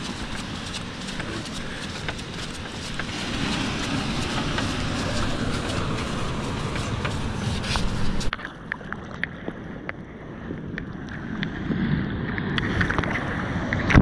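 Ocean surf and wind on an action camera's microphone, a steady rush with scattered knocks. About eight seconds in the sound cuts abruptly to a quieter, duller rush that swells again near the end.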